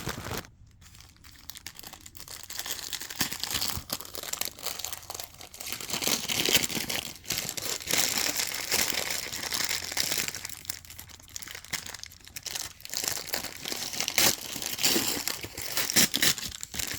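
Paper or plastic packaging crinkling and tearing as a small package is opened by hand, in irregular rustling bursts that grow busier after the first few seconds.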